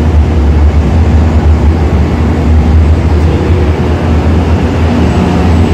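E5 series Shinkansen train moving slowly alongside the platform: a steady low rumble with a wash of running noise.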